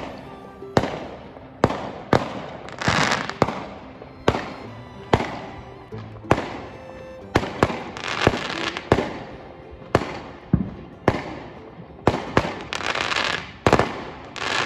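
Aerial fireworks going off in a rapid series of sharp bangs, about one or two a second, several of them followed by crackling.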